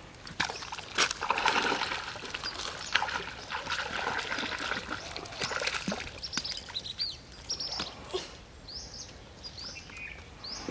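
A hooked fish thrashing and splashing in shallow, muddy pond water as it is pulled in on a rod and line, loudest in the first few seconds. Small birds chirp in short falling notes.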